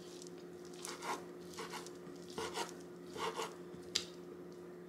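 Kitchen knife chopping cooked chicken on a wooden cutting board: a series of soft knocks, mostly in pairs, over a faint steady hum.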